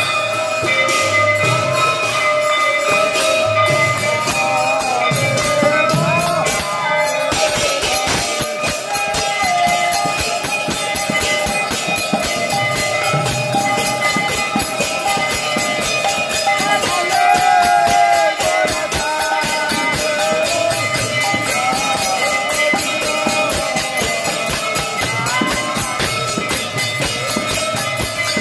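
Devotional music: constant rapid metallic jingling over a steady held drone, with a voice singing at times and low drum beats scattered through.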